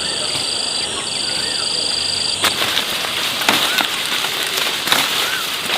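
A steady high insect buzz with a bird's short rising-and-falling call repeating. About two and a half seconds in the buzz cuts off and a rustling, crackling noise with sharp snaps takes over, while the bird keeps calling about once every second and a half.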